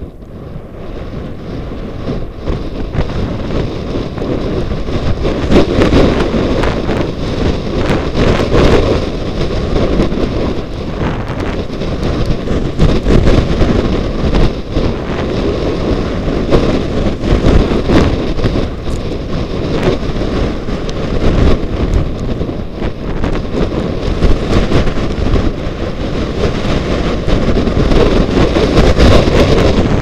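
Strong wind rushing over a helmet camera's microphone as a skier descends, mixed with the crackle of skis scraping over wind-crusted snow. It builds over the first five seconds and then stays loud.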